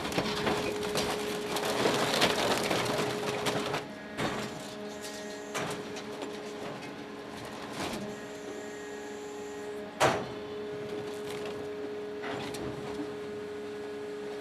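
Sierra 750 shear/baler/logger working through a fast cycle on scrap metal. Its electric-motor and hydraulic-pump hum runs steadily under dense grinding and crunching for about the first four seconds. Then come a few separate metallic knocks and one sharp bang about ten seconds in.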